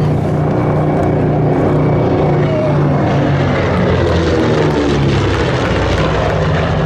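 The two Wright R-2600 Cyclone 14-cylinder radial engines of a B-25 Mitchell bomber run at power in a loud, steady drone as the plane makes a banking pass. The pitch drops slightly about halfway through as it goes by.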